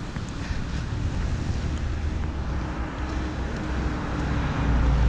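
Street traffic noise: passing cars making a steady hum, with wind on the microphone and a low rumble that swells near the end.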